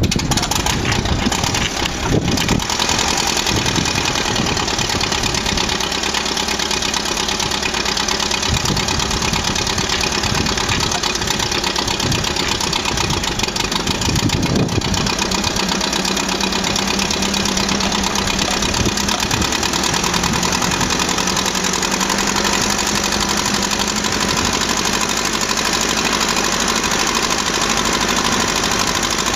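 Ferguson TED20 tractor's four-cylinder engine starting up and then running steadily.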